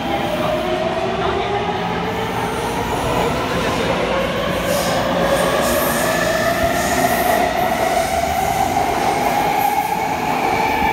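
Taipei Metro Bannan line train pulling out of the station. Its traction-motor whine rises steadily in pitch as it gathers speed, over a steady rumble of wheels on rail.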